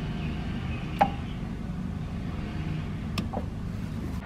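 Two sharp clicks of a power strip switch, one about a second in and a smaller one just after three seconds, over a steady low hum.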